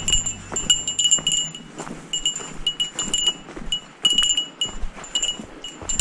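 A hiker's small bear bell jingling in quick, irregular rings, several a second, shaken with each step of the walk.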